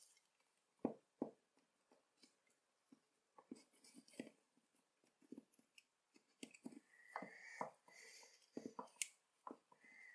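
Faint, irregular metal clicks and short scrapes of an Allen key and pivot pin working against a Hope Tech 3 brake lever body, as the pin is pushed and wiggled through the lever's pivot holes.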